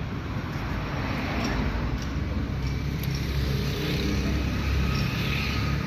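Steady low rumble of a motor vehicle, swelling slightly through the middle.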